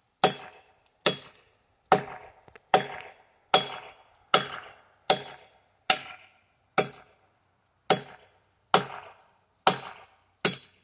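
A machete chopping into a hard walnut branch: about thirteen steady blows, a little over one a second, each a sharp chop with a brief metallic ring.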